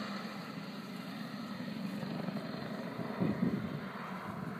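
Distant rescue helicopter's rotor and engine drone, fading slightly as it flies away, with a brief louder low rumble about three seconds in.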